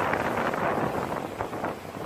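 Seawater from a breaking wave rushing and churning across a ship's open stern deck, with wind buffeting the microphone; the rush eases a little near the end.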